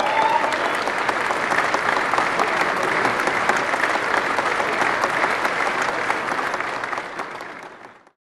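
Large audience applauding, a dense steady clapping that fades out near the end.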